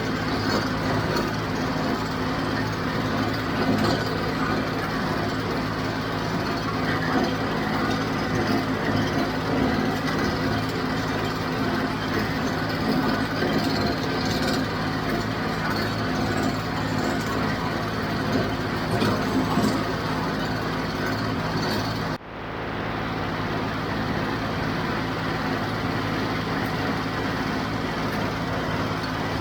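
John Deere 5055 tractor's diesel engine running steadily at working speed while driving a John Deere 348 small square baler with bale kicker, the machinery clattering under the engine. The sound drops out for a moment about three quarters of the way through, then resumes unchanged.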